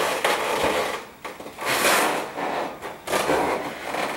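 Latex balloons rubbing and squeaking against one another as hands push and tuck them into a balloon garland, in three stretches with short pauses between.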